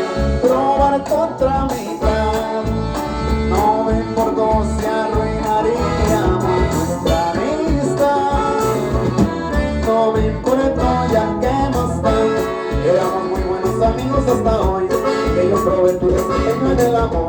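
Live band playing an upbeat Latin tune over a PA: a melody line over bass and a steady drum beat.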